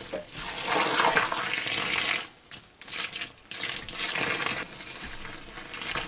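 Water being poured: a loud splashing stream for about two seconds, then stopping and starting in shorter, quieter pours.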